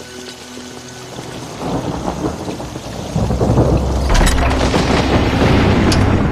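Thunderstorm: rain and a rumble of thunder building from about a second and a half in, with sharp thunder cracks about four seconds and six seconds in.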